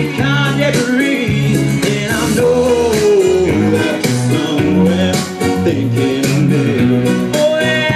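Music: a song with guitar and a steady beat, and a held note gliding down about two seconds in.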